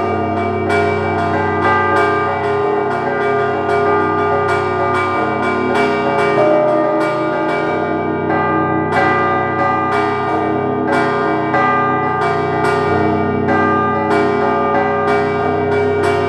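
Russian church bells ringing a rapid peal: smaller bells are struck several times a second in a busy pattern over the sustained hum of the large, low bells.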